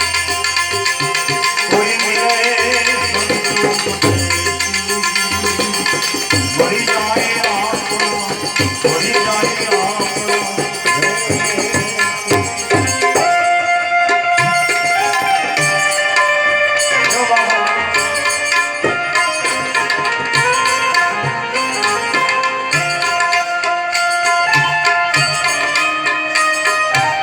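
Live bhajan music: tabla drumming with a sung devotional melody.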